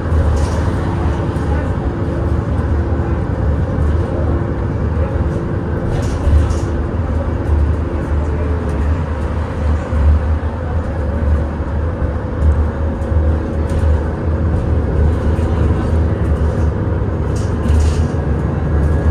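Cabin noise aboard a 2021 Nova Bus LFS Hybrid transit bus under way: a steady low rumble with a faint steady hum over it.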